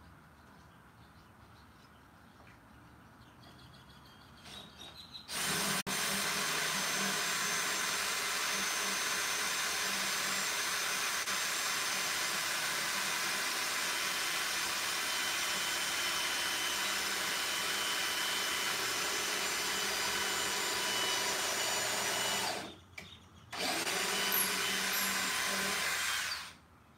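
Cordless drill running into a wooden panel: a few short blips about four seconds in, then a long steady run of some seventeen seconds with a whining motor tone, a pause of about a second, and a final run of about three seconds that stops near the end.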